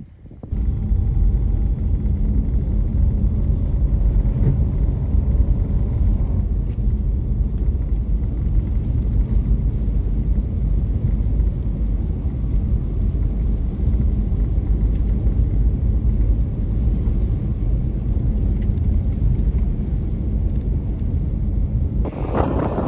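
A car driving on a snowy road: a steady, loud, low rumble of engine and tyres that starts suddenly about half a second in. A louder rushing noise comes in near the end.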